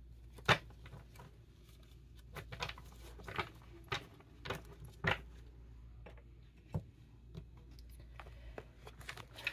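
Tarot cards being handled: scattered light taps and clicks, with one sharper tap about half a second in, over a low steady hum.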